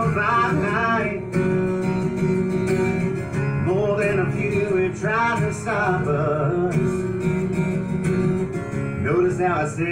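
Acoustic guitar strummed, with a man's voice singing long, bending notes without clear words at a few points.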